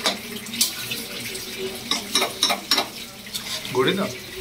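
Metal spatula stirring and scraping thick chicken curry in a steel kadai, with several sharp clinks against the pan over a steady frying sizzle.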